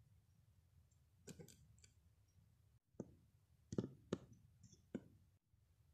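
Hard plastic toy figurines tapping and clicking against a wooden floor as they are handled: a few light clicks a little over a second in, then four sharper taps in the second half.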